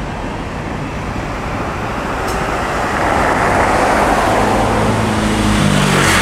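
Road traffic passing close by: a pickup truck drives past, its tyre and engine noise swelling from about halfway through. The engine hum grows louder near the end.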